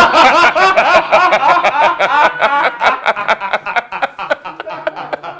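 Two men laughing heartily: a loud, quick run of ha-ha bursts that trails off and grows quieter toward the end.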